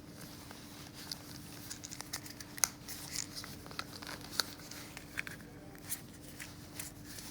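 Plastic DIN plug being worked apart by hand: irregular small clicks and scrapes as the tight 4-terminal insert is pushed out of its housing.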